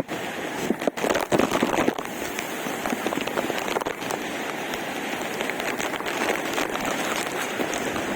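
Waterfall spray blown back by the wind: a steady rush of falling water and spray with crackling drops and gusts on the microphone, rougher and louder between about one and two seconds in.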